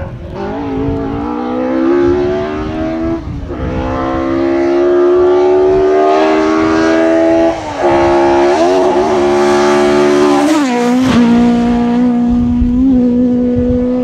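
Rally car engine pulling hard through the gears on a tarmac stage, its note climbing in each gear and dropping at upshifts about three and seven and a half seconds in. Between nine and eleven seconds in the pitch wobbles and falls sharply as the driver comes off the throttle and changes down. After that it holds a steadier, lower note.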